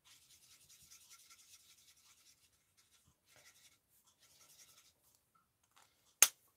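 Faint scratchy rubbing of an alcohol-ink blending marker's nib over cardstock in short colouring strokes, then one sharp click near the end.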